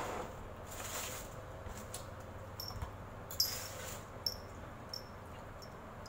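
Mouth sounds of people eating soft durian flesh: lip smacks and chewing, with a few short clicks.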